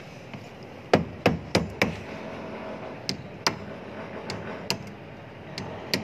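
Hammer driving a nail into a wooden formwork plank: a quick run of four sharp blows about a second in, then a few more spaced, lighter taps. The nail fixes the beam shuttering board so it stays in line with the string line.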